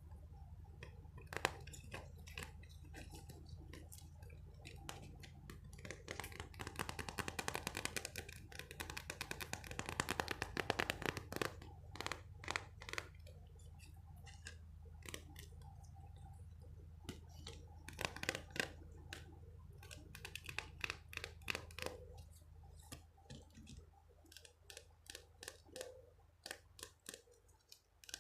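ASMR trigger sounds: an object handled right at the microphone, giving runs of quick crisp clicks and crackles, dense in the first half and sparser toward the end. A steady low hum underneath fades out a little past the middle.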